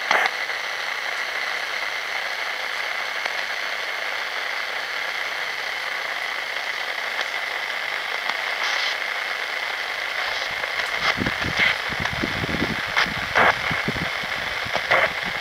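Shortwave static hissing from a Sangean ATS 505 portable receiver's speaker as it is tuned across empty frequencies around 16 to 17 MHz, with no station coming in, and a steady high tone under the hiss. From about ten seconds in, clicks and crackles break in.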